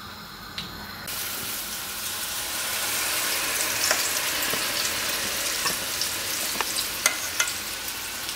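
Walnut, red onion and egg kuku batter poured into a frying pan of very hot melted butter, bursting into a sizzle about a second in that builds over the next couple of seconds. A spoon scrapes and taps as the batter is spread in the pan.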